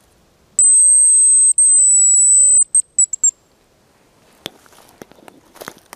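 Hazel grouse decoy whistle blown: one long, thin, very high whistle, broken once, followed by a few short notes that step slightly down, imitating the hazel grouse's song to call the bird in.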